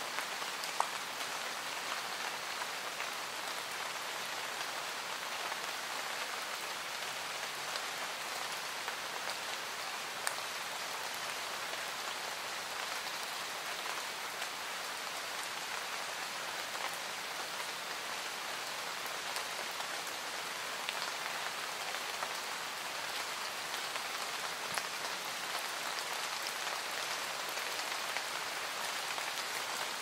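Steady rain falling in a forest, an even hiss of many drops without let-up. A few sharper single ticks stand out, one about a second in and another near ten seconds.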